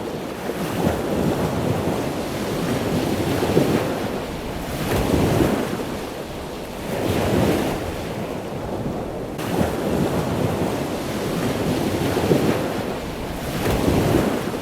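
Surf washing on the shore, with wind buffeting the microphone. The noise rises and falls every two seconds or so.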